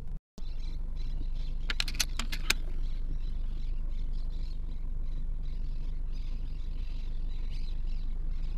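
Steady low rumble of handling and wind noise on a rifle-scope camera, with a quick run of sharp clicks about two seconds in.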